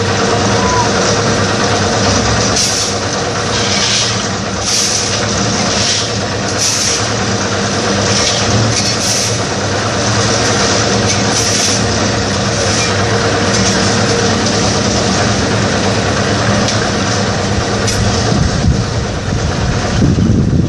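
Concrete mixer's engine running steadily, with irregular short scraping hisses over it.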